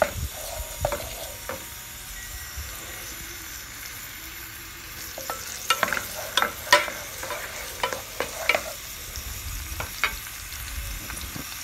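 Chopped garlic sizzling in hot oil in a pot as it is sautéed and stirred with a wooden spatula. From about halfway through comes a run of sharp clicks and knocks as the spatula strikes the pot.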